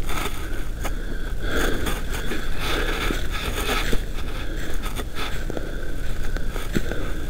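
Footsteps through dry leaf litter, with clothing and gear rustling close to the microphone and a few sharp knocks.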